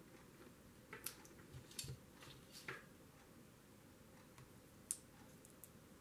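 Faint handling noise of paper and an artificial leaf being moved about on a table: a few soft rustles and small clicks about one to three seconds in, then a single sharp tick just before five seconds.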